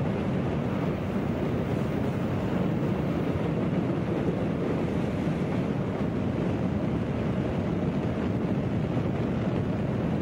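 Steady rush of a fast-moving passenger train heard from an open side window at its head end: wind noise on the microphone mixed with the rolling of wheels on rail.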